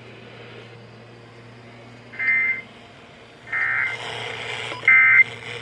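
Emergency Alert System end-of-message tones: three short bursts of the two-tone SAME digital data signal, about a second and a half apart, marking the close of the broadcast alert. A low steady hum runs underneath.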